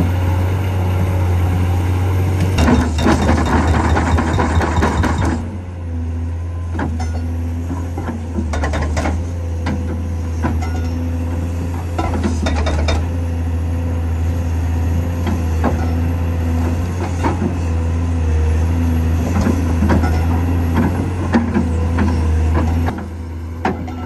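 Cat 385C excavator's diesel engine running under load while its hydraulic hammer pounds the ground in a fast, dense burst about three seconds in. After that come scattered knocks and clanks as the hammer is worked against the soil. The engine note drops shortly before the end.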